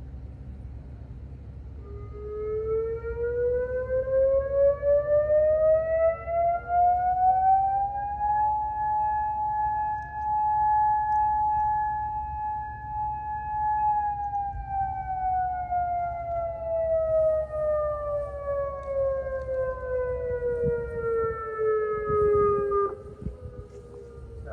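Federal Signal Modulator electronic outdoor warning sirens sounding a short test alert: one slow wail that rises in pitch, holds steady, then falls and cuts off near the end. A fainter, more distant siren trails a few seconds behind.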